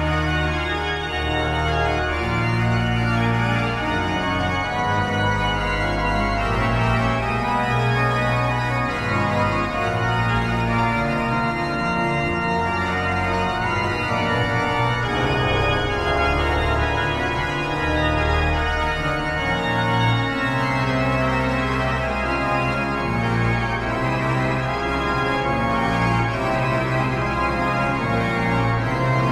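Pipe organ playing slow, full chords over deep held bass notes, the chords changing every second or two.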